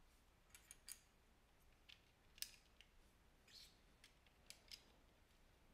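Faint clicks and taps of plastic LEGO pieces being handled and pressed together, about seven short scattered clicks with the loudest about two and a half seconds in.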